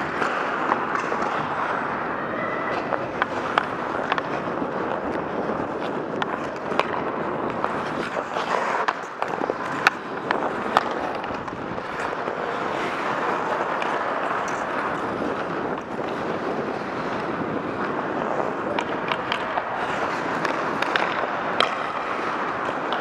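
Ice skate blades carving and scraping across the rink in a continuous rush, with scattered sharp clacks of hockey sticks and puck.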